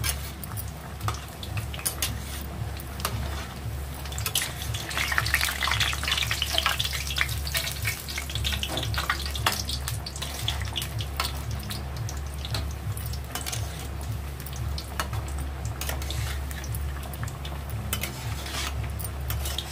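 Battered yam slices sizzling and crackling as they deep-fry in hot oil in a kadai, with a steel spatula clinking and scraping against the pan as they are turned. The sizzle is densest about five seconds in, over a low steady hum.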